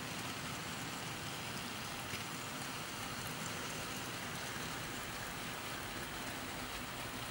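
00 gauge model goods train of coal wagons rolling past on the track: a steady, even noise of many small wheels running on the rails.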